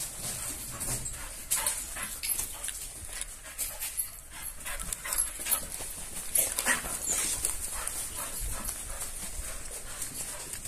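Footsteps crunching irregularly over broken brick and rubble, with a dog whimpering.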